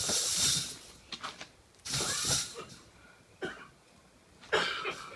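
Feral cat thrashing inside a drop trap, rattling and knocking the trap in three short bursts: a strong cat fighting the trap.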